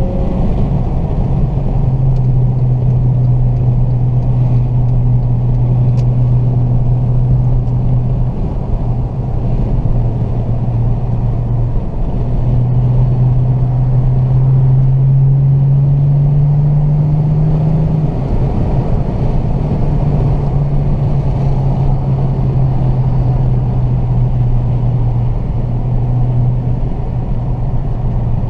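Mercedes C300's V6 with a Magnaflow X-pipe and mufflers droning through the cabin while cruising, over road noise. About halfway through the drone climbs steadily in pitch as the car accelerates, then drops back and settles.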